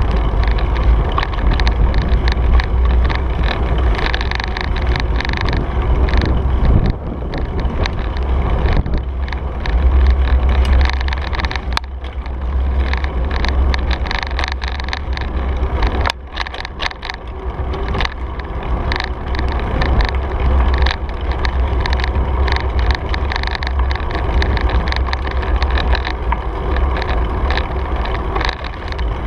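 Riding noise from a bicycle-mounted camera: wind buffeting the microphone as a steady low rumble, with tyre noise on pavement and frequent small clicks and rattles from the bike and camera mount over bumps, more of them in the second half.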